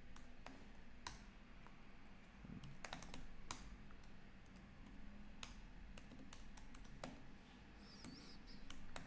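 Faint, irregular keystrokes on a computer keyboard, with gaps between short runs of clicks.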